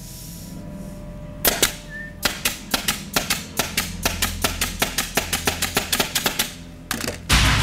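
Pneumatic nail gun firing nails in rapid succession, about six shots a second, after two sharp shots about a second and a half in. Applause breaks out near the end.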